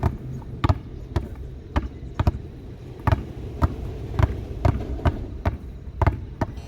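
Two basketballs being dribbled, bouncing about twice a second, sometimes two bounces landing close together.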